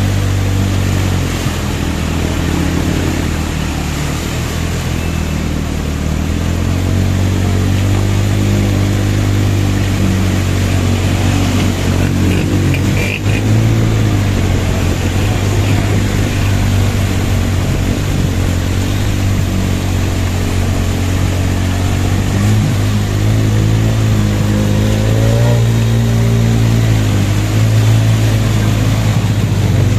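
Motorcycle engine running close up at low revs while riding through deep floodwater, its pitch shifting up and down with the throttle and rising briefly with a rev near the end.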